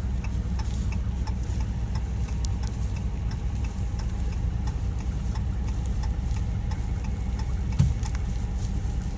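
Truck engine idling steadily, a low even hum, with scattered faint ticks and a brief low bump near the end.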